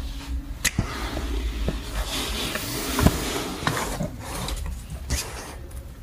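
Kittens play-fighting on a tiled floor: scuffling and fur-and-fabric rustling, with a few sharp knocks.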